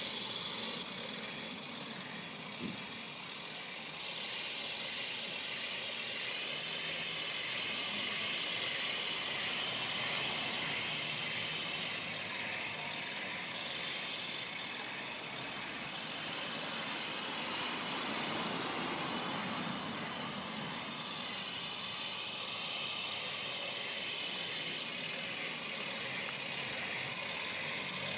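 Radio-controlled full-metal Tiger tank model driving across grass, with the steady running noise of its drive motors, gearboxes and metal tracks.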